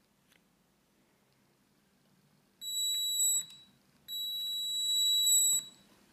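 A high, steady electronic whine from the converted RC car's small electric motor and speed controller as the throttle stick is pushed. It comes twice: a short tone under a second long, then one about a second and a half long that grows a little louder. Each cuts off suddenly with a click.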